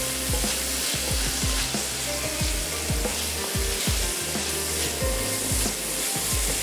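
Chicken frying in oil in a pan with garlic, spring onion and capsicum, sizzling steadily while it is stirred.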